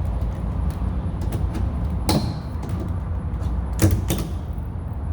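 Knocks and scrapes of a generator's shipping box being opened by hand, with two louder clacks about two and four seconds in, over a steady low rumble.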